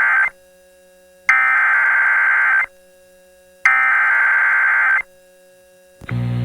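Emergency Alert System SAME header: three identical bursts of data tones, each about a second and a half long with a second's gap between them, marking the start of a new alert. About six seconds in, a steady buzzing tone begins.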